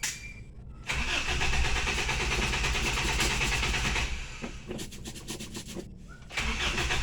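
Starter motor cranking the carbureted engine of an old Toyota Kijang that has had water get into it, in an even pulsing run for about three seconds, stopping, then cranking again near the end.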